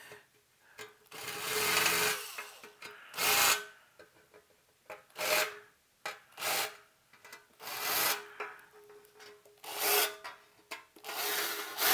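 Cordless Makita drill spinning a deburring bit briefly in one small hole after another in a metal amplifier chassis, shaving the burrs off the hole edges. It comes as about seven short whirring, scraping bursts with pauses between them.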